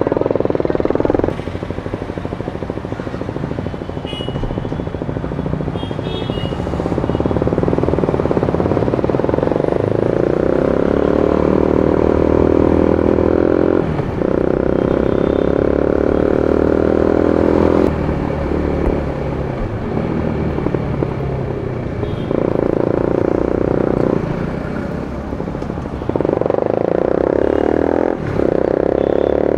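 2017 KTM Duke 250's single-cylinder engine running through an Austin Racing GP1R exhaust fitted with two dB killers. The revs are raised and held for a few seconds at a time, several times, between spells at lower revs.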